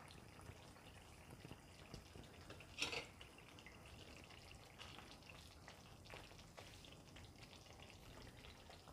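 Mostly near silence, with faint scrapes and light taps of a spoon as curry is ladled from the pan into a serving bowl. There is one louder tap about three seconds in.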